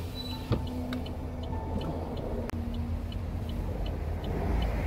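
Low, steady rumble of a car driving along a road, with faint high ticks about twice a second.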